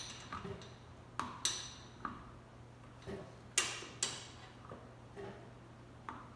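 Irregular light clicks and taps, about eight spread over the few seconds, the loudest a little past halfway, as an air filter is worked onto a Jr Dragster engine's intake at an angle. A faint steady low hum runs underneath.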